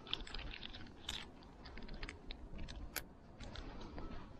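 Micro Phillips screwdriver turning a small screw out of a Daiwa Goldcast 508RL spincast reel's housing, with the reel handled in the fingers: a quick run of small clicks and scratches in the first second or so, then sparser ticks with one sharper click about three seconds in, over a low rumble.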